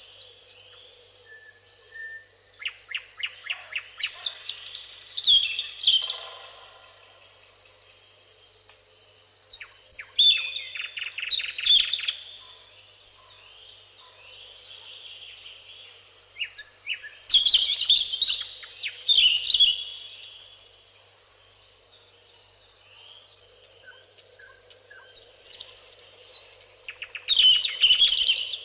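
Songbirds singing in phrases that come about every six to eight seconds, each with a fast trill. A steady high tone runs underneath.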